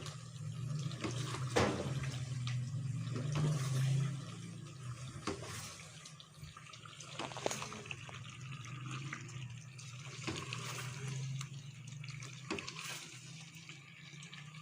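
Sliced potatoes and spices sizzling in hot oil in a karahi, a steady hiss with a few sharp clicks scattered through it.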